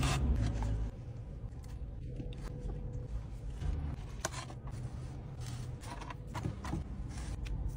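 Scattered light clicks, crackles and rustles of gloved hands handling fries and crispy fried chicken in a polystyrene takeout box, over a low rumble.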